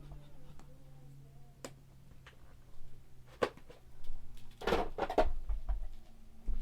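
Low hum of a vacuum cleaner motor dying away as it winds down, with scattered clicks and knocks and a louder clatter about halfway through.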